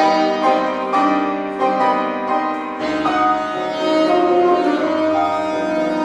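Saxophone and grand piano playing a tango together: the saxophone holds long melody notes over piano chords.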